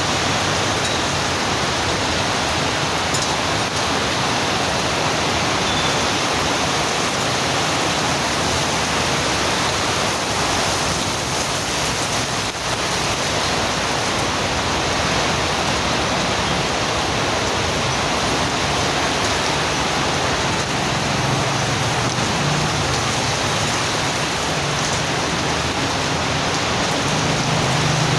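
Heavy rain falling in a steady, dense hiss. A low hum joins in about three-quarters of the way through.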